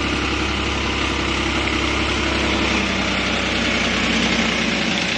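Farm tractor's diesel engine running steadily at an even pitch as the tractor works through deep mud.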